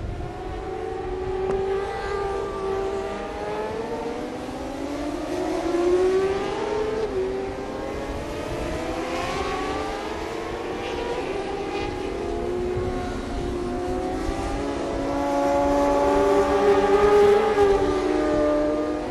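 600 cc supersport racing motorcycle engines revving hard through the gears, several at once, their pitch repeatedly rising and then dropping at each shift; loudest near the end.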